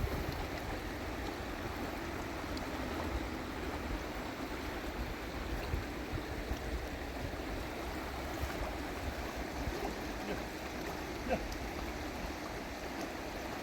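River water running steadily, with a few faint clicks.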